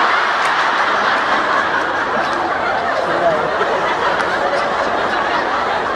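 A congregation laughing together: a dense, steady wash of many people's laughter.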